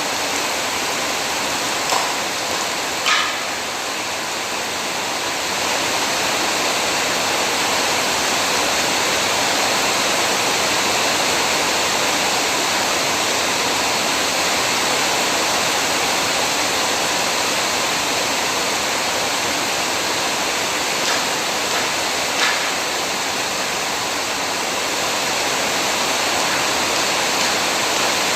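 Heavy rain pouring down steadily, with a few brief sharp taps: two a couple of seconds in and two more past the middle.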